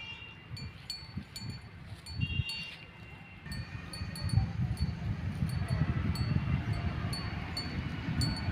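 Light metallic chiming ticks repeating about twice a second, over a low rumble.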